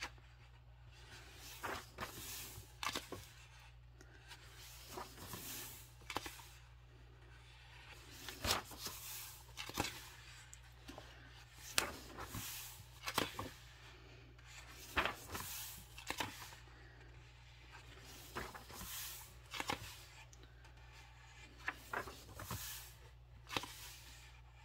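Pages of a coloring book being turned one after another, a short papery flick or swish about every second.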